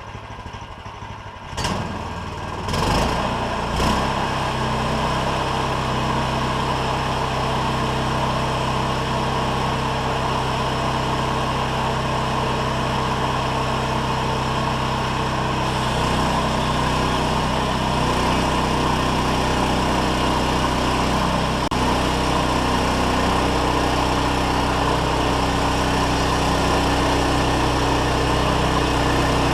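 Gasoline engine of a Harbor Freight bandsawmill, idling and then throttled up over the first three seconds. It then runs steadily, its note shifting slightly lower about halfway through.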